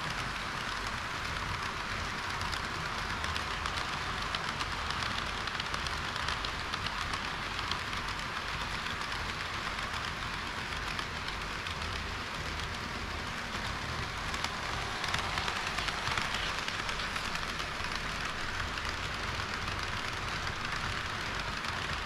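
HO-scale model trains rolling past on sectional track: a steady rattle of metal wheels on the rails with small clicks at the rail joints.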